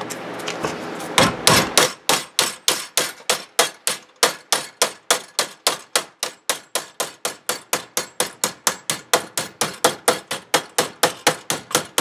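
Metal hammer striking the edge of a clamped sheet of diamond plate, about four blows a second, starting a little over a second in. The blows work the plate's edge over to form a straight folded lip.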